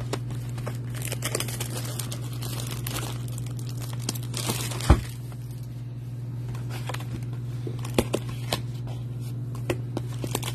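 Plastic shrink wrap on a sealed baseball card hobby box crinkling and tearing as it is stripped off and the box is opened. A sharp knock comes about five seconds in and a few light taps follow, over a steady low hum.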